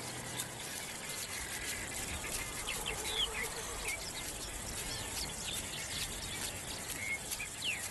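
Outdoor wildlife ambience: scattered short, high bird chirps over a steady insect hum, with a brief rapid chattering call about three seconds in.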